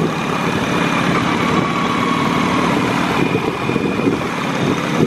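Yamaha XS650 chopper's air-cooled parallel-twin engine running steadily as the bike rides along.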